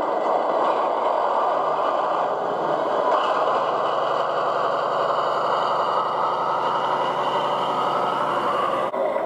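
Diesel engine sound from the Lenz O gauge V100 model locomotive's factory-fitted DCC sound decoder, running steadily as the loco moves along the track. A steady low hum joins about three seconds in.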